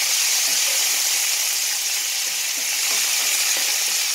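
Pork pieces sizzling in oil in a hot cast-iron skillet: a steady frying hiss, with faint scrapes and knocks as a wooden spatula stirs them.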